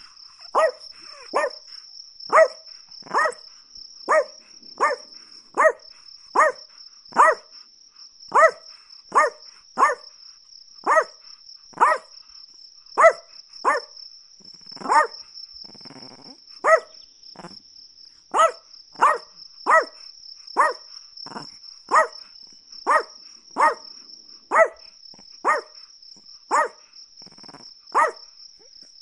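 Chihuahua barking over and over, short sharp barks about one a second, often in quick pairs. A steady high-pitched trill runs underneath.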